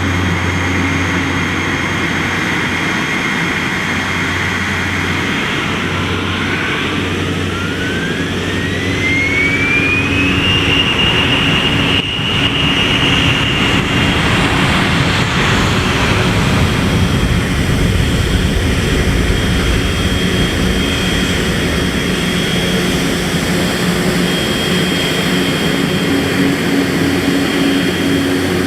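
Piaggio P-180 Avanti's twin pusher turboprop engines running, with a turbine whine rising in pitch from about six to ten seconds in as the sound grows louder, then holding steady at the higher power.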